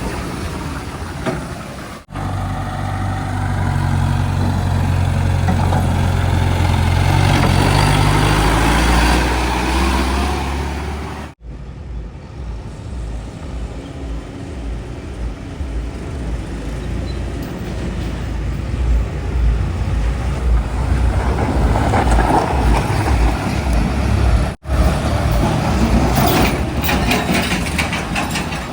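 Heavy diesel engines of working machinery, a backhoe loader or tractors, running under load across several cut-together clips. In the first long stretch a deep engine note holds steady and then sags slightly. Later the engine throbs, and near the end there is metallic rattling.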